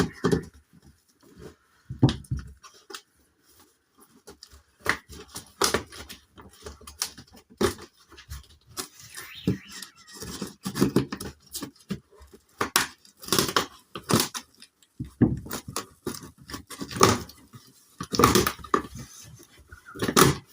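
Packaging being handled during an unboxing: cardboard and wrapping rustle and crackle, with scattered knocks and scrapes at irregular intervals.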